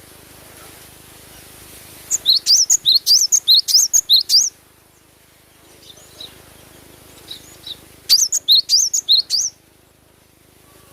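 Cinereous tit (gelatik batu) singing: two bouts of rapid repeated high, sweeping notes, about five a second, with a few soft single notes in the pause between.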